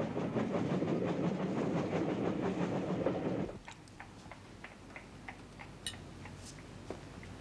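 Train running along the rails: a steady rumble with the clatter of wheels over rail joints, which cuts off abruptly about halfway through. After that, light clinks of a knife and fork against a china plate.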